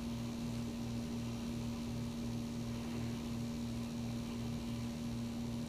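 A steady low hum with a faint, even pulsing about four times a second underneath.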